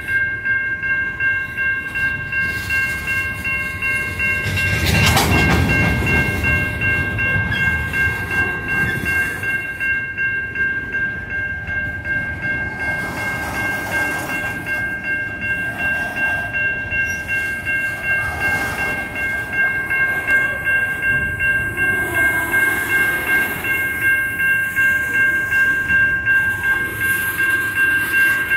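Type 3 Safetran electronic crossing bell ringing steadily with rapid, even strikes as coal hopper cars roll past at the crossing. A louder rumble from the passing cars comes about five seconds in.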